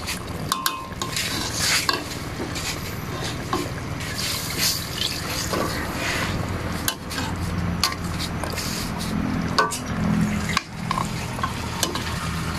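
A utensil stirring in a cooking pot of chicken with water just added, with repeated scraping knocks against the pot. A steady low hum runs underneath.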